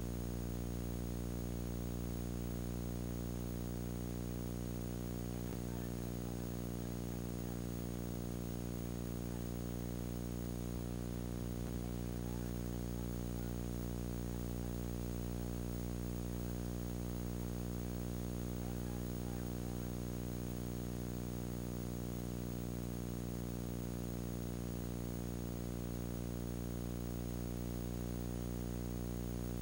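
Steady electrical hum with many overtones, unchanging in pitch and level, over a faint hiss.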